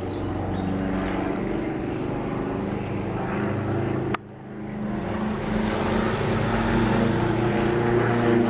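Propeller aircraft engine running steadily. It drops off suddenly about halfway through, then comes back and grows louder.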